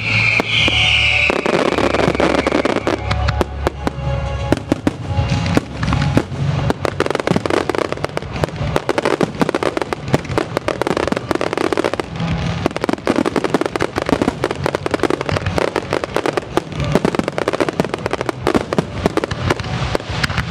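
Zambelli aerial fireworks display: shells bursting in quick succession, with dozens of sharp bangs and crackles over music.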